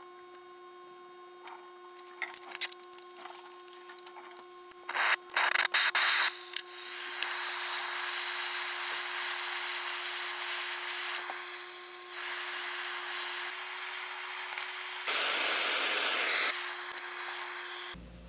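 Propane hand torch lit after a cluster of sharp clicks and pops, then hissing steadily for about ten seconds while it heats a brass joint for soldering. It is louder for a moment near the end, then cuts off suddenly.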